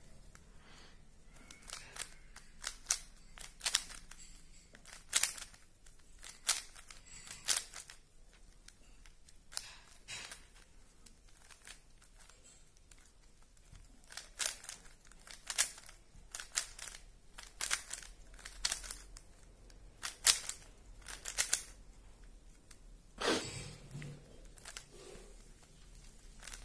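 Rubik's Cube layers being turned by hand: bursts of quick plastic clicks and clacks with short pauses between them, while the first-layer corner pieces are being set. About three quarters of the way through comes a louder, duller knock.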